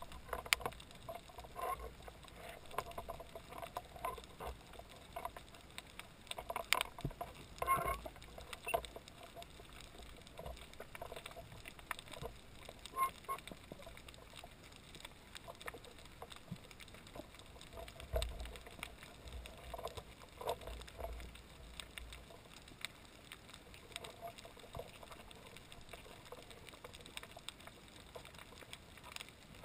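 Muffled underwater ambience heard through a camera's waterproof housing during a freedive over a reef: scattered sharp clicks and crackles, with a stretch of low rumbling water movement a little past the middle.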